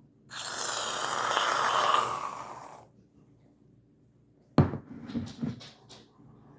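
Aerosol can of whipped cream spraying in one steady hiss for about two and a half seconds. A sharp knock and a few lighter clicks come about four and a half seconds in.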